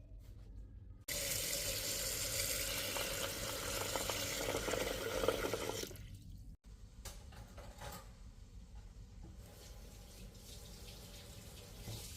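Kitchen tap running into a sink: the water starts suddenly about a second in, runs steadily for about five seconds and stops, followed by a few faint clicks.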